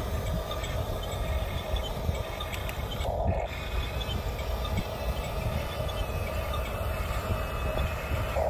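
Huina radio-controlled toy bulldozer's electric drive motors and gearboxes whining steadily as it crawls on its tracks, pushing sand with its blade, with a low rumble underneath.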